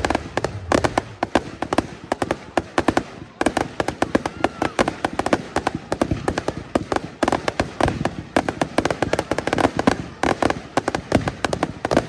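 Fireworks going off in quick succession: a dense string of sharp cracks and bangs, many a second, throughout.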